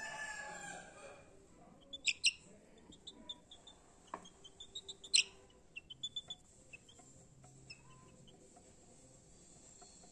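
A drawn-out fowl call, falling slightly in pitch, over the first second. Then a scatter of short, high bird chirps, the two loudest about two and five seconds in.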